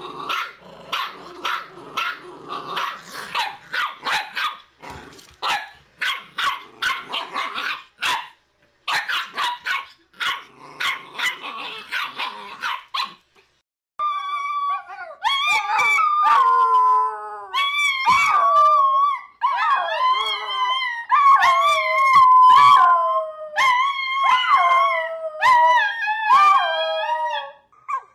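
Puppies yapping in rapid, noisy strokes for about the first half. Then, after a short pause, a terrier howls in long wavering calls that rise and fall, breaking off and starting again several times.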